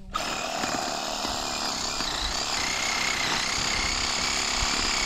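A Ryobi cordless power tool switches on abruptly and runs steadily under load, a whining motor over a rough cutting noise.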